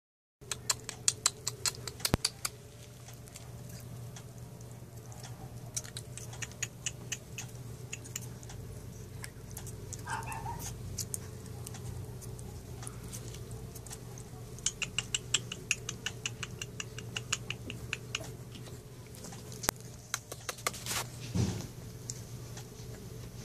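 Three-and-a-half-week-old pit bull puppies shuffling in a plywood box: a scatter of small clicks and scratches, with a short whimper about ten seconds in, over a steady low hum.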